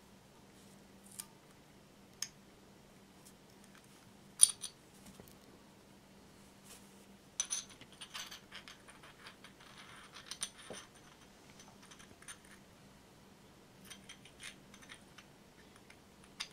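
Broken porcelain fragments of a Lladró figurine clicking and scraping against each other as they are test-fitted by hand in a dry build, before any glue. Scattered sharp clicks, the loudest about four seconds in, with a busier run of small clicks between about seven and eleven seconds.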